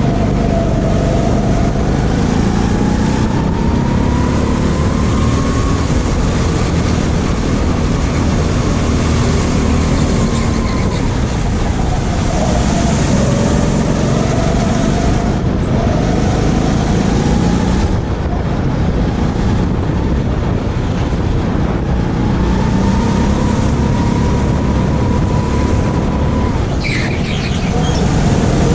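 Onboard sound of a go-kart being driven around a track: a loud steady rumble with the motor's pitch rising and falling as it speeds up and slows for corners. A brief high sliding sound comes near the end.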